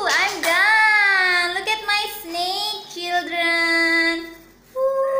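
A high-pitched voice singing without clear words, sliding up and down at first, holding a long even note about three seconds in, breaking off briefly, then starting another long held note near the end.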